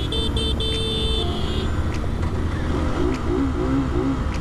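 A vehicle horn honks four times, three short blasts and one longer, over a steady rumble of engines and traffic. A warbling tone rises and falls quickly several times about three seconds in.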